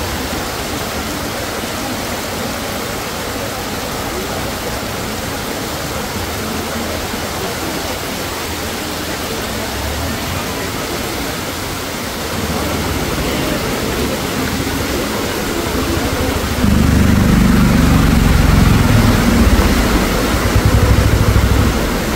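Floodwater rushing across a street in heavy rain: a steady wash of water noise. It grows louder about twelve seconds in, and for most of the last five seconds a heavy low rumble joins it.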